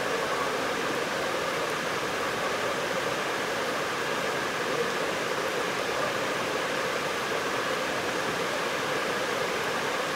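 Steady rushing noise with faint hum-like bands in it and no distinct knocks or other events.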